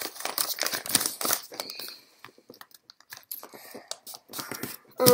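Origami paper crinkling and rustling in quick, irregular crackles as hands fold and crease an accordion-pleated sheet, with a short, louder pitched sound right at the end.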